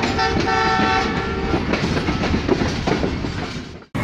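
Locomotive air horn sounding a chord, breaking off briefly and sounding again for about a second, over train running noise with clickety-clack. The noise fades out and cuts off just before the end.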